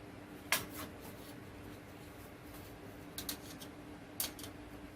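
A few light clicks and taps from antenna parts being handled as an element is flipped around on its mount, spread out in small groups, over a faint steady hum.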